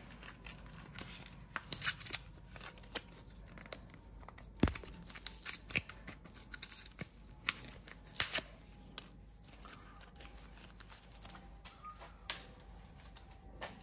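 Crinkling and tearing of small packaging, as of a button-cell battery blister pack being opened, with irregular sharp clicks. One sharper click about four and a half seconds in.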